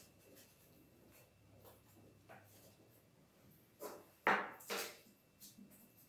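Hands handling paper and small objects on a tabletop: faint rustling, then a short cluster of three louder rubs and knocks about four seconds in.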